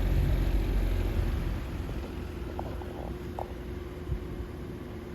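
Vintage Freshnd Aire 14-inch table fan (Model 1400) dropping to its low speed: the rush of air and rumble fade over the first two seconds, then it runs steadily with a light motor hum. It runs slower on low than it should, which the owner puts down to the bearings or the motor needing to warm up.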